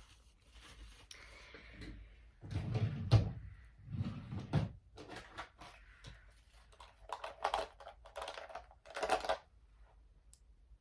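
Handling noises from makeup tools being picked up and used: two soft thuds a few seconds in, then several short rustles and scrapes.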